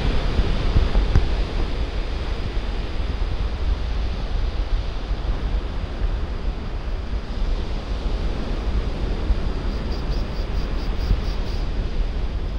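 Wind blowing over the microphone with a heavy rumble, over the steady rush of surf. About ten seconds in, a faint rapid high ticking comes and goes.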